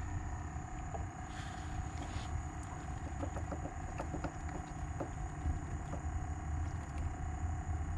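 Small spinning reel being wound in after a cast, with light, rapid clicking about three to five seconds in. A steady low rumble runs underneath.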